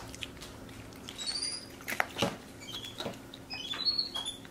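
Capuchin monkey giving short, high-pitched squeaks, a few of them a little over a second in and another run near the end, with a few soft clicks in between.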